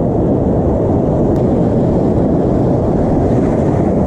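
Steady low rushing noise of breaking surf washing around close by, mixed with wind buffeting the microphone.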